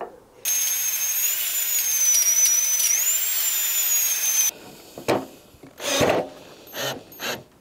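Ryobi cordless drill running for about four seconds with a high-pitched whine whose pitch dips as the bit bites, then stopping suddenly. A few knocks and clatters follow.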